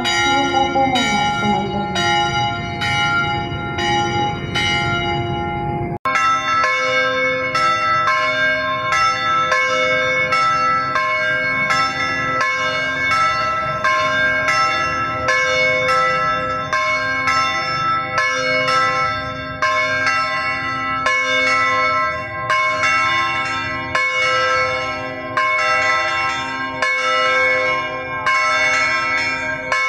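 Church bells ringing: a steady run of evenly repeated pitched strikes, each left ringing. About six seconds in the sound cuts abruptly to a different, denser peal.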